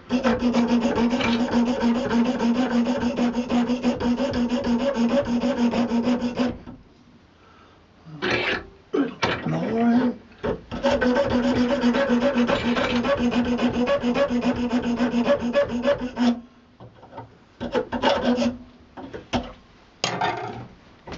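Flat hand file rasping on buffalo horn clamped in a metal bench vise, opening up the gap inside the curled nose of a walking-stick handle. Two long runs of quick strokes with shorter bursts between, and a steady low ringing tone that sounds only while the filing runs.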